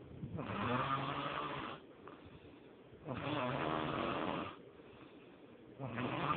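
A person snoring in a steady rhythm: two long, pitched snores of over a second each, about every two and a half to three seconds, with quieter gaps between, and a third snore starting near the end.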